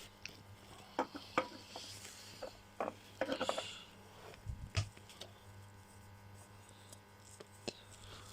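Scattered light knocks, clicks and scrapes of a new spin-on oil filter being fumbled onto its mount by hand, its thread not yet catching.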